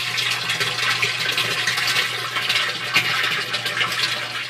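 Water gushing steadily from a bell siphon's PVC drain elbow into the plastic barrel below: the siphon is primed and draining at full flow. A low steady hum runs underneath.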